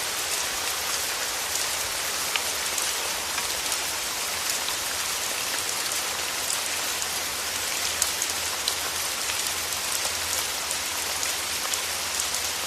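Steady rainfall, an even hiss with many scattered drop ticks, over a faint low hum.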